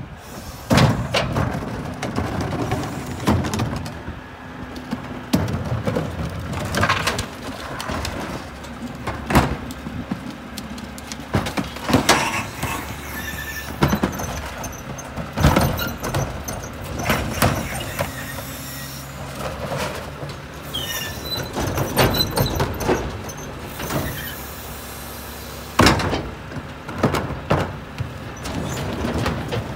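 Split rear loader garbage truck running while its cart tippers lift and dump wheeled trash carts into the hopper. Loud plastic-and-metal bangs every few seconds as the carts hit the tippers and hopper, over the steady hum of the truck, with a brief squeal about twenty seconds in.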